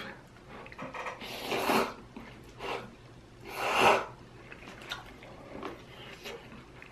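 Instant noodles slurped from a paper cup, two long noisy slurps about a second and a half in and again near four seconds, the second the louder, with a shorter one between and faint mouth sounds in the gaps.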